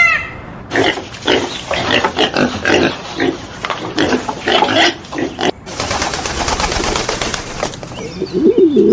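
An animal grunting in a run of short, rough calls for about five seconds. A harsh, noisy stretch of about two seconds follows, and low, wavering cooing calls begin near the end.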